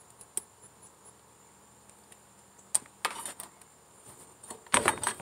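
Hand handling headlight wiring and a bulb socket inside a plastic lawn tractor hood: a few scattered clicks, then rustling and clicking about three seconds in, and a louder cluster of clicks and rustle near the end.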